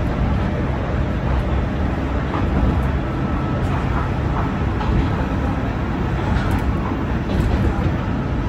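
Diesel railcar running along the line, a steady low rumble of engine and wheels on rail with a few scattered clicks.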